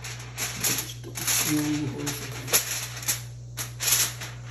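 Aluminium foil crinkling and crackling in irregular bursts as it is pressed and crimped down over the rim of a baking tray, with a steady low hum underneath.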